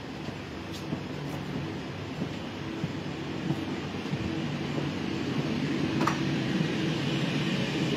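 Steady low hum and rumble inside a passenger train coach, growing a little louder toward the end, with one sharp click about six seconds in.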